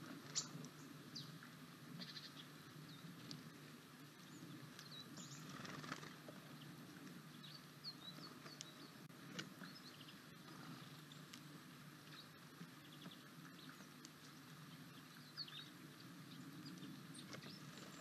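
Faint forest ambience: scattered short chirps of small birds calling in the distance over a steady low hum, with a few sharp clicks, the loudest about half a second in.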